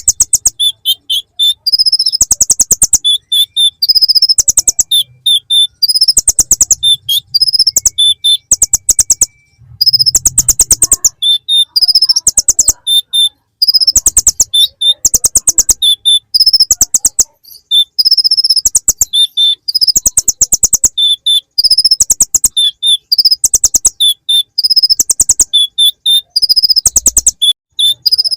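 A kolibri ninja (konin) sunbird singing loudly, its song made of fast, high, buzzy trills repeated in short phrases about once a second with brief gaps. The phrases are filled with mimicked ciblek (bar-winged prinia) calls.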